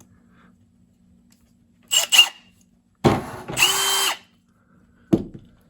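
Milwaukee M18 half-inch cordless hammer drill driver triggered with no bit in the chuck: a short blip about two seconds in, then a run of about a second with a steady motor whine. A single click follows near the end.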